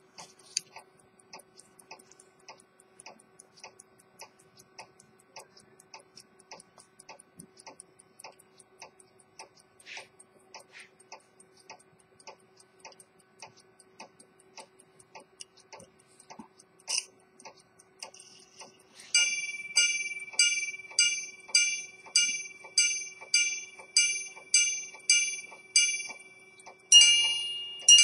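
Swiss quarter-repeater pocket watch ticking steadily, then a sharp click about two-thirds through. Its repeater then strikes its gongs in a run of about a dozen evenly spaced, bell-like chimes, about two a second, with two louder strikes near the end.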